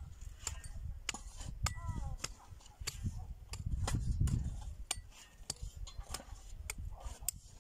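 Hoes and rakes striking stony soil: irregular sharp clicks and knocks, many a second, over a low rumble.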